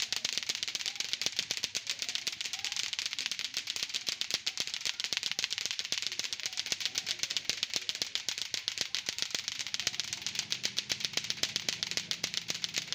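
Three latto-latto clacker toys clacking at once, their plastic balls striking together in a fast, continuous clatter of overlapping clicks.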